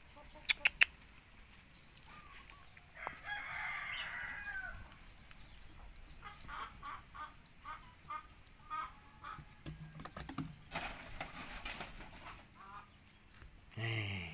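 Chickens clucking in a series of short calls, with a longer call about three seconds in and another near the end. Three quick sharp clicks come just after the start.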